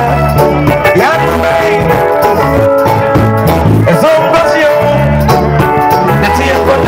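Loud music with a steady repeating bass line, rhythmic shaker-like percussion and a melody with singing.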